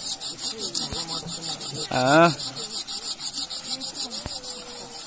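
Insects buzzing in a high, rapid, even pulse, about eight beats a second, with a short vocal call from a person about two seconds in.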